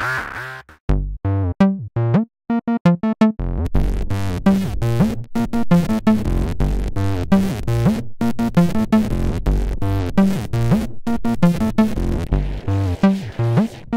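Audiorealism ABL3 TB-303-style synth bassline playing a repeating sequenced acid pattern through Noise Engineering Ruina distortion, giving a gritty, circuit-bending-like sound. About a second in the pattern breaks up into sparse, stuttering notes, and the full pattern comes back about three and a half seconds in.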